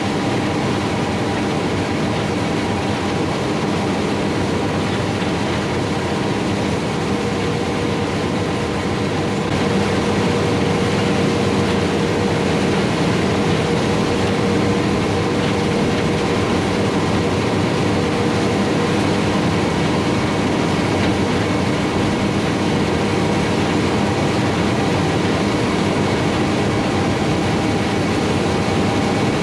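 Large harvest machinery running steadily: a combine and tractor engine hum made of several steady tones over an even mechanical rush. It gets a little louder about ten seconds in.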